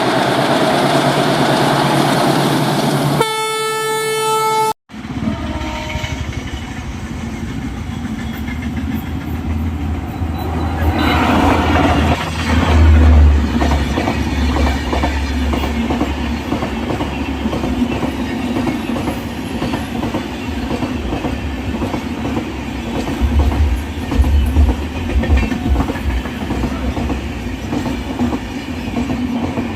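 Indian Railways WAP-4 electric locomotive and its passenger train running past at speed, with the locomotive's horn sounding once for about a second and a half near the start. After a sudden cut, the train rolls by with a steady rumble and rhythmic clatter of wheels over rail joints.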